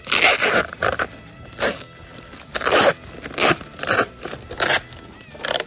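Thin protective plastic film being peeled off a new clear motorcycle windscreen and bunched up in the hands: a series of irregular crinkling, crackling bursts. Faint background music runs underneath.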